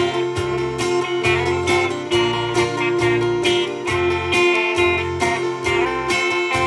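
Live gospel band playing an instrumental passage: electric guitar over bass guitar and a steady drum beat.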